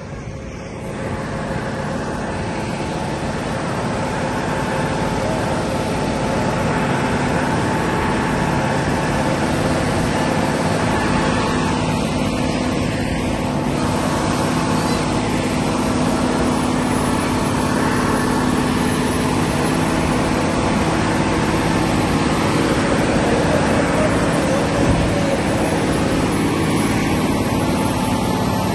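Heavy diesel tipper trucks' engines running steadily under load as they tow a very heavy trailer, a continuous drone that swells over the first few seconds and then holds.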